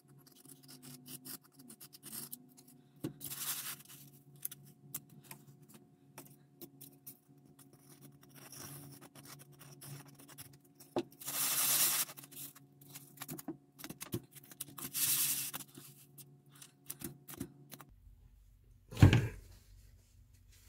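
Hands working on a workbench, gluing diorama landscape pieces in place: scattered small clicks, taps and scrapes with a few brief hissing rustles, and one louder knock near the end.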